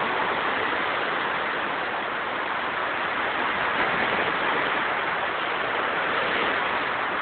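Rough sea surf and wind, a steady, even rush of noise with no single wave crash standing out.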